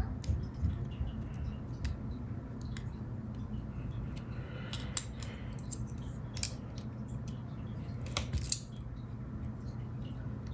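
Scissors snipping and small handling clicks as short strips of tape are cut and pressed into place, with the sharpest snips about eight seconds in, over a low steady hum.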